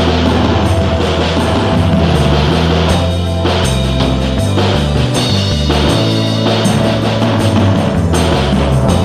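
Rock music with a drum kit and a bass line that steps from note to note.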